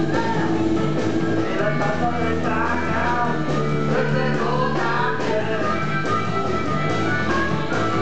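Live blues band playing: electric guitar, bass guitar and drums, with a harmonica cupped in the hands wailing over them in bending notes.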